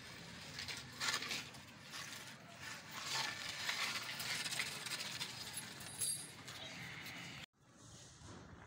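Siberian husky puppies scuffling on a concrete floor around a bamboo stick: scattered small clicks and scrapes from paws, claws and the stick. The sound cuts off abruptly near the end and a quieter stretch follows.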